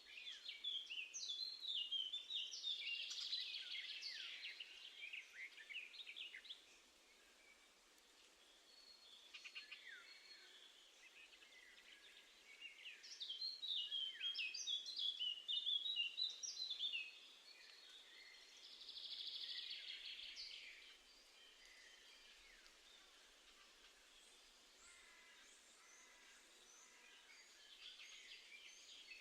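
Songbirds singing outdoors: three bouts of rapid, varied high chirping phrases a few seconds long, separated by pauses, over faint steady background noise.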